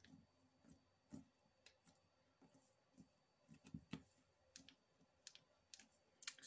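Near silence with faint, irregular clicks and taps as hands press and handle a layered block of polymer clay on a plastic cutting mat.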